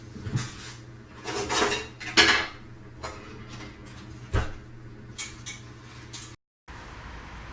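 Scattered knocks and short clatters of objects being handled, the loudest a little over two seconds in. About six seconds in the sound cuts out completely for a moment and comes back as a steady hiss.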